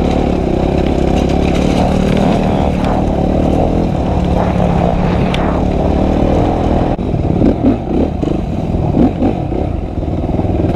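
Motorcycle engine running under way, heard from the rider's own camera. About seven seconds in, it turns choppy, surging up and down in quick pulses.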